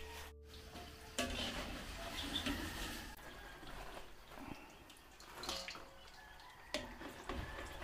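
Tempura-battered fish fillets deep-frying in hot oil: a steady sizzle that starts about a second in, with a few light clicks.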